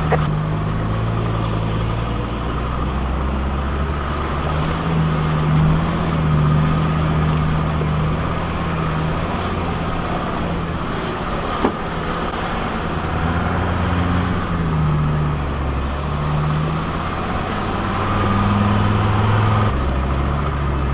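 Land Rover Discovery driving along a gravel dirt track: the engine runs steadily, its note stepping up and down with the throttle, under the rumble of tyres on loose stones. A single sharp knock comes about twelve seconds in.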